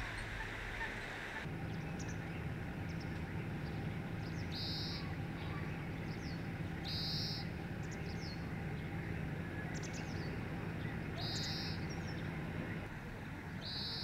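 Oriental greenfinch singing: four drawn-out buzzy notes, each about half a second long and a few seconds apart, with faint short twitters between them.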